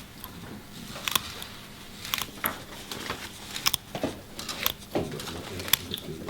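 Irregular light clicks and taps from handling small dissecting instruments and plastic sample containers, roughly one every second.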